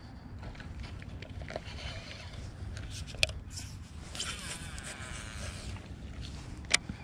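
Baitcasting reel being cranked to retrieve a cast swimbait: a whirring rasp from the reel, loudest about four to six seconds in, with two sharp clicks, about three seconds in and again near the end. Wind rumbles on the microphone underneath.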